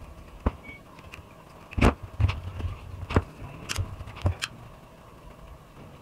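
Handling noise: about six sharp clicks and knocks as wires and small parts are worked by hand, the loudest about two seconds in.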